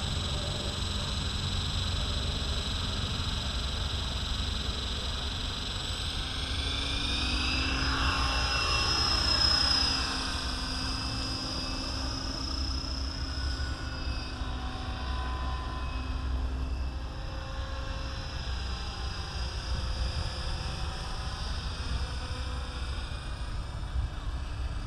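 Align T-Rex 550E electric RC helicopter: the motor and rotor whine rises in pitch about six seconds in as the rotor spins up and the helicopter lifts off, loudest around nine seconds in, then holds a steady whine with slowly shifting pitch as it flies away.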